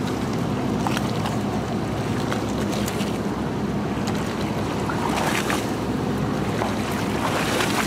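Small fishing boat's engine running steadily at idle, with sea water washing against the hull and wind buffeting the microphone.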